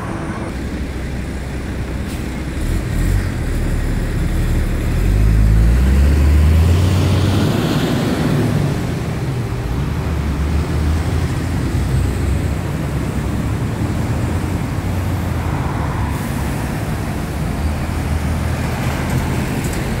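Road traffic: cars and buses running past in a steady rumble, with one vehicle's engine climbing in pitch as it speeds up, loudest about five to seven seconds in.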